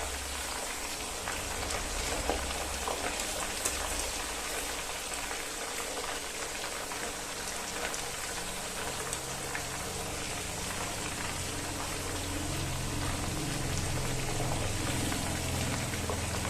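Chicken pieces deep-frying in hot coconut oil: a steady sizzle with scattered small pops and crackles.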